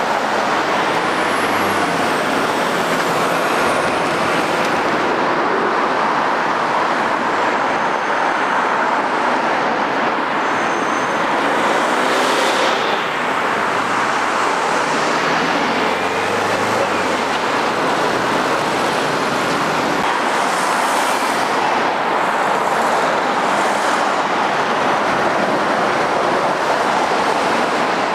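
Road traffic passing: lorries, vans and cars driving by, a steady mix of engine and tyre noise.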